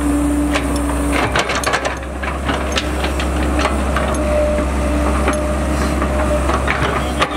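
Cat E120B excavator's diesel engine running steadily, with a faint on-off hum and many scattered sharp knocks and clanks as the bucket works over the mud.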